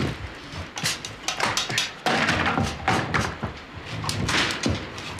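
Driftwood and old wooden boards being broken up by hand: a string of irregular wooden cracks, snaps and thumps.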